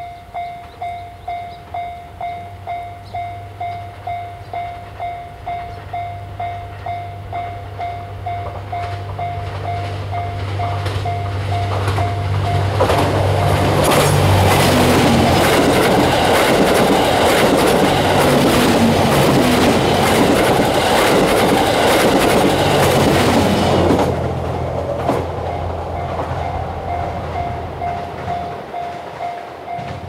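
Japanese level-crossing warning bell dinging about twice a second while the JR West Series 87 Twilight Express Mizukaze, a hybrid diesel-electric train, approaches with a rising engine hum. The train then passes close by for about ten seconds, loud with engine noise and wheel clatter that drown the bell. The bell is heard dinging again once the train has passed.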